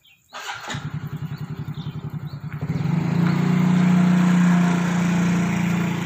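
A motorcycle engine running close by. It starts about half a second in, grows markedly louder from about two and a half seconds in, and eases slightly near the end.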